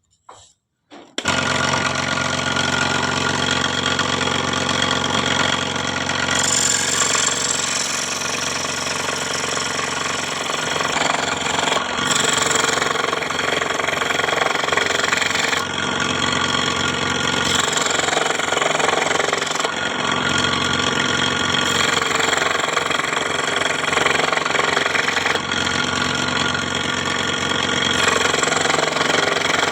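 Scroll saw running with a steady mechanical hum that starts about a second in, its tone shifting slightly every few seconds.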